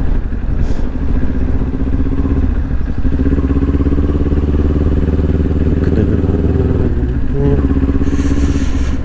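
Kawasaki Ninja 400's parallel-twin engine running at steady, low revs as the bike rolls slowly, with a brief change in the engine note near the end.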